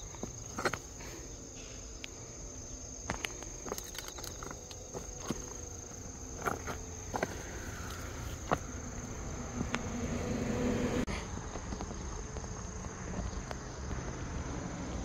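Steady high-pitched chirring of insects, with scattered clicks and footsteps on dry dirt. A low hum swells about ten seconds in and cuts off suddenly.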